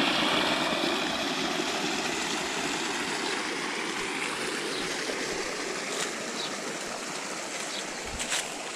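Steady rushing of flowing water that slowly fades, with a couple of faint knocks near the end.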